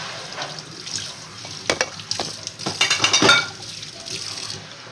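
Tap water running into a kitchen sink while dishes are washed by hand, with dishes clattering about two seconds in and again around three seconds. The running water stops shortly before the end.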